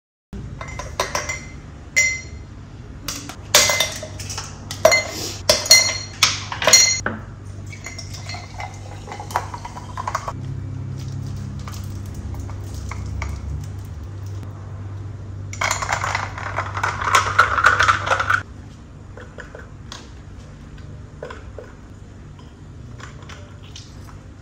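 Ice cubes clinking into a glass jar: a run of sharp, ringing clinks over the first seven seconds. This is followed by softer handling sounds and a few seconds of hissing noise about two-thirds of the way through.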